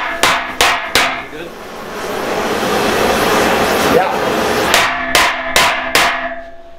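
Hammer blows on steel: three quick ringing strikes, then a steady loud hiss from the heating torch, then four more strikes about half a second apart.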